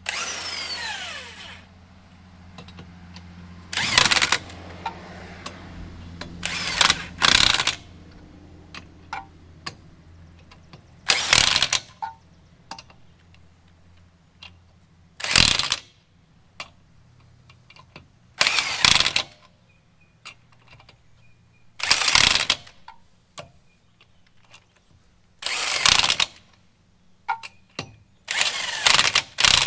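Impact wrench run in short bursts every few seconds, snugging lug nuts up one after another on a heavy-duty pickup's wheel. A steady low hum runs underneath, and a falling whine is heard at the start.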